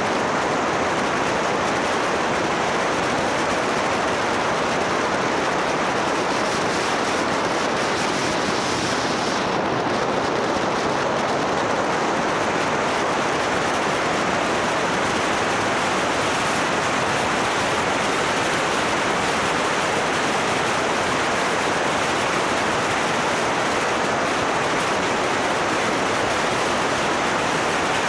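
Steady rushing wind and road noise on the microphone of a camera riding on a moving motorcycle, with no clear engine note standing out.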